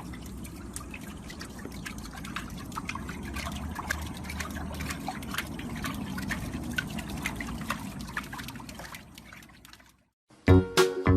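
Liquid sounds: water trickling over a low rush, with many small irregular drips or clicks. It fades out near the end.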